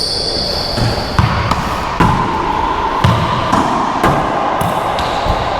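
Racquetball rally: the ball smacking off racquets and the court walls in a series of sharp cracks, about one every half second to second.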